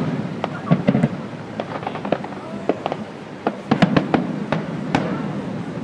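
New Year fireworks going off: a steady run of sharp bangs and crackles at irregular intervals, coming thicker about four seconds in.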